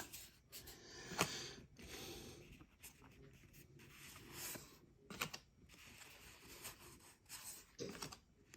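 Baseball trading cards being handled and flipped through by hand: faint sliding and rubbing, with a few soft clicks as cards are moved.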